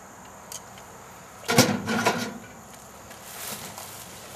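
Black plastic trash bag rustling and crinkling as it is handled, with two short loud crinkles about a second and a half and two seconds in and a softer rustle a little later.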